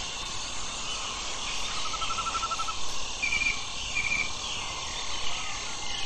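Waterfall rushing steadily, with wildlife trilling over it: a rapid trill about two seconds in and short trills near three and four seconds.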